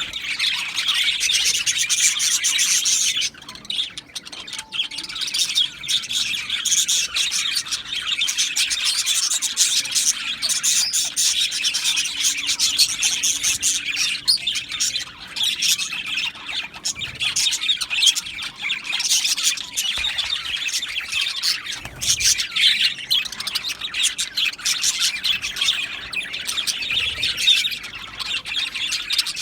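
A flock of budgerigars chirping and chattering together: a dense chorus of overlapping chirps and squawks, with a brief lull about three seconds in.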